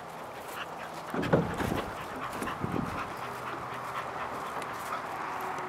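Border collie panting as it runs and climbs over an agility A-frame, with a few louder sounds between about one and three seconds in.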